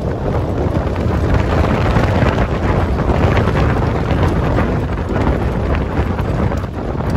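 Wind buffeting the microphone from a moving vehicle on a dirt road, over the steady low rumble of the vehicle and its tyres on the gravel.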